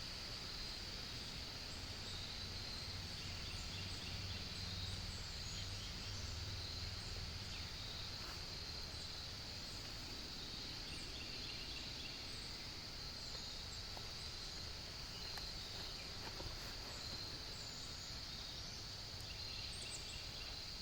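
Outdoor nature ambience: a steady high-pitched drone with many faint, brief chirps scattered over it, and a low rumble underneath.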